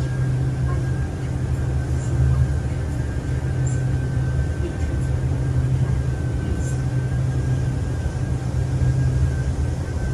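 Steady low rumble and hum inside the carriage of a green Fuxing CR200J train, with a thin steady high whine above it and a few faint ticks.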